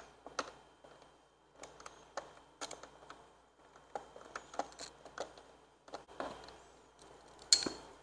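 Scattered clicks and light taps of a hand tool working a rear-fender bolt under a motorcycle's tail plastics, irregularly spaced, with one sharper click near the end.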